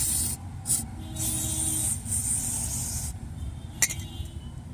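Aerosol cleaner spray hissing, first in two short bursts and then in one long spray of about two seconds, used to clean a dirty ABS wheel-speed sensor. A single sharp click comes near the end.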